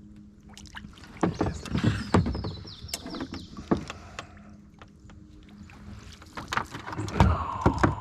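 Water splashing, with a scatter of knocks against the hull of an Old Town Vapor 10 kayak, typical of moving about and handling gear in the boat. The knocks come in two clusters, about a second in and near the end.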